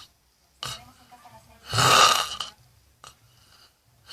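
A person snoring loudly: one loud snore lasting under a second about halfway through, with short, fainter breath sounds shortly before and after it.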